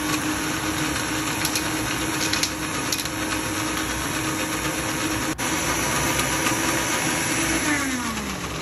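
Single-serve blender's motor running steadily, grinding paan leaves, betel-nut masala, sugar and a splash of milk into a paste. Near the end it is switched off and winds down, its pitch falling as it slows.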